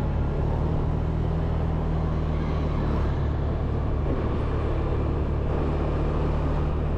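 Road vehicle driving along: a steady, even low engine drone with road noise.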